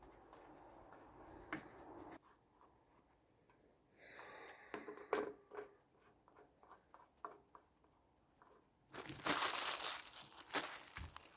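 Gloved hands working at a fuel filter housing: a few light clicks and taps of small parts, then a loud burst of rustling noise lasting about two seconds near the end.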